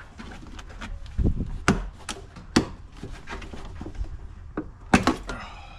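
Plastic tailgate trim panel of a Jeep being pulled off the door, its clips letting go in a series of sharp clicks and knocks, the loudest about five seconds in.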